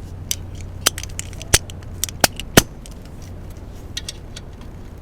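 Sharp metallic clicks and clinks of a 10 mm socket wrench loosening an ignition coil's bottom mounting nut: about six in the first two and a half seconds, then a few faint ticks.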